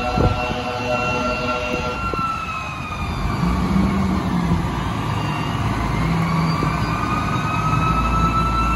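Fire truck siren wailing in one slow cycle: its pitch sinks over several seconds, then climbs again. Under it, from about three seconds in, the truck's diesel engine runs low as the apparatus pulls out.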